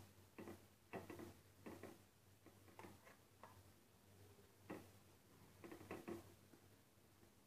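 Faint, irregular soft taps and scrapes of a silicone spatula mixing grated paneer in a steel kadhai.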